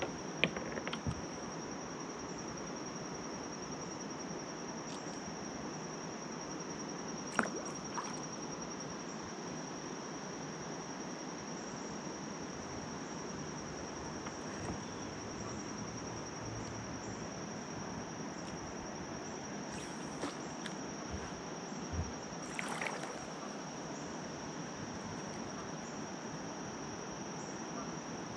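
Steady high-pitched insect chorus over a low rushing hiss of open-air background, broken by a few sharp clicks and knocks, the loudest about seven seconds in.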